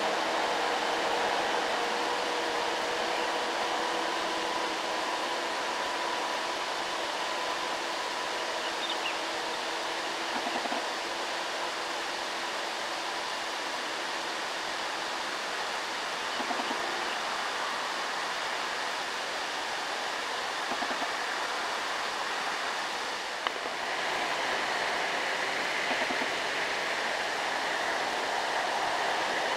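Diesel engines of heavily loaded light trucks labouring up a steep grade in low gear, heard from a distance: a steady drone with a pitched hum that fades through the first half, under constant road and air hiss. There is a sharp click about three quarters of the way through, after which the hiss turns brighter.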